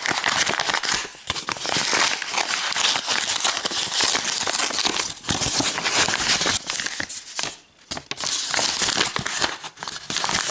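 White paper envelope crinkling and rustling as it is handled and opened by hand, with a short lull about three-quarters through.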